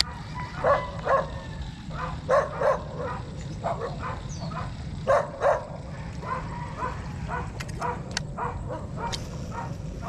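A dog barking in short double barks, three loud pairs in the first six seconds, then fainter barks.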